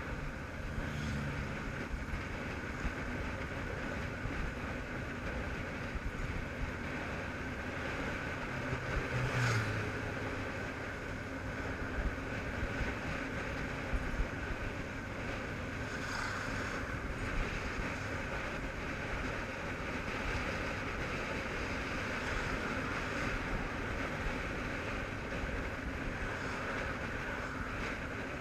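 Honda CBF500 parallel-twin motorcycle being ridden along a town road, its engine running under a steady rush of wind and road noise on a bike-mounted microphone.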